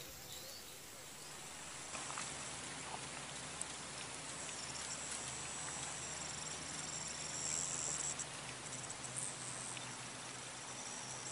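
Outdoor rural ambience: a steady hiss with a high-pitched insect trill that swells in the middle and fades again, and a few faint ticks.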